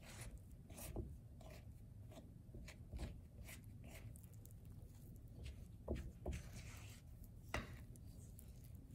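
Silicone spatula scraping and folding a soft flour dough against a ceramic bowl: a run of soft, irregular scrapes and taps, with a few sharper knocks about six and seven and a half seconds in.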